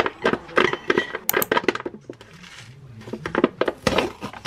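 Metal fork and spoon clinking and scraping against a ceramic bowl: a quick run of sharp clicks over the first two seconds, then a few more near the end.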